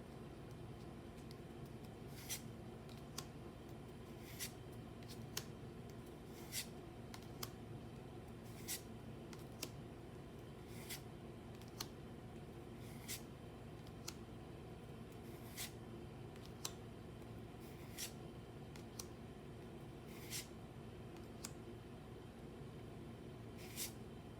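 Pokémon trading cards being flipped through one at a time, each card giving a short crisp snap about once a second, over a steady low hum.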